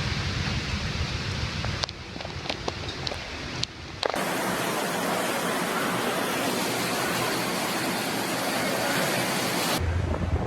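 Steady rushing storm noise of wind and heavy rain, changing abruptly at several cuts between clips, with a few faint clicks in the quieter stretch.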